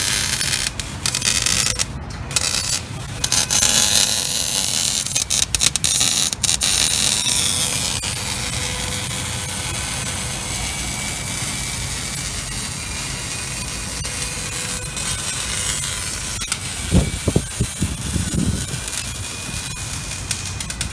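Maserati Quattroporte V8 idling through straight pipes with the mufflers deleted: a steady deep rumble with a rushing hiss from the chrome tips. A few short, louder pulses come about seventeen seconds in.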